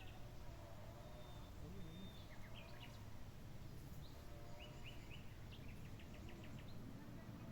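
Faint bird chirps and short calls over a steady low background noise, with a quick run of repeated chirps about halfway through.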